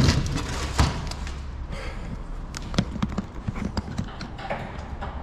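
Knocks and light taps of hard objects being handled and set down, with a louder thud at the start and another just under a second in, over a steady low hum.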